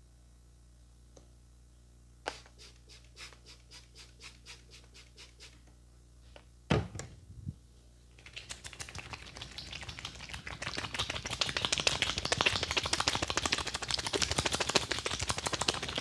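A spaced series of sharp taps, a heavy knock with a second one just after, then a fast, dense patter of many quick taps that grows louder from about halfway through.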